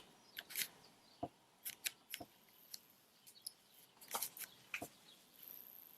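Faint, irregular clicks and brief scrapes from a small handheld tablet and its packaging being handled.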